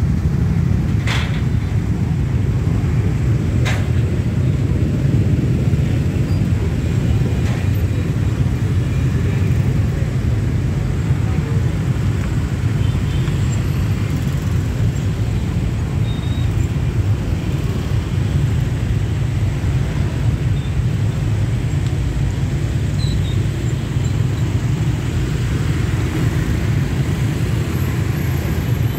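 Dense stream of motorbikes and scooters pulling away together, a steady rumble of many small engines. Two sharp clicks come in the first four seconds.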